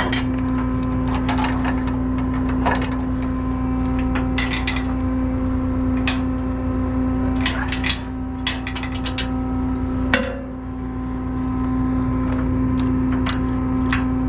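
Irregular metallic clinks and clanks of tie-down chains being handled and hooked on, over the steady hum of an engine running.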